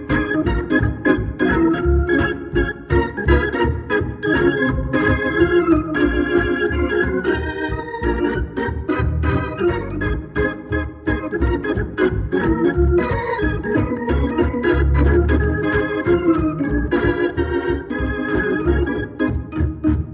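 Hammond B3 organ played through a Leslie 122 speaker cabinet after servicing: sustained chords over a pulsing bass line, with sharp attacks on the notes.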